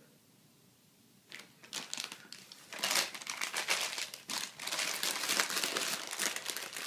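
Dense crinkling and rustling noise that starts about a second in and grows louder about three seconds in.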